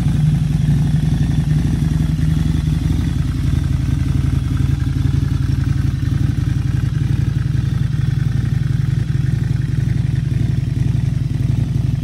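Custom Harley-Davidson V-Rod Night Rod's liquid-cooled V-twin idling steadily, a fast, even low pulse through its aftermarket exhaust.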